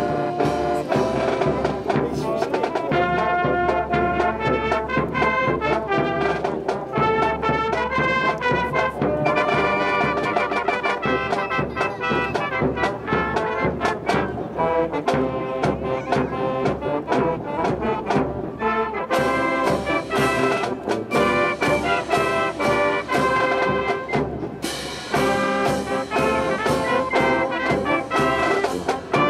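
Military brass band playing a march: trumpets, trombones, saxophones and sousaphone over marching drums. The drum beat becomes much more prominent about two-thirds of the way in.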